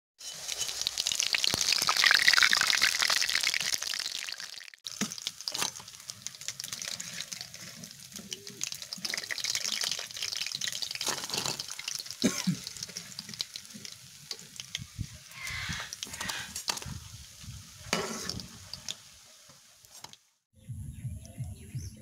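Fritters of arum flower and lentil batter deep-frying in a wok of hot oil, a dense sizzle that is loudest for the first four or five seconds. After that the sizzle is quieter, with scattered scrapes and clicks of a spatula.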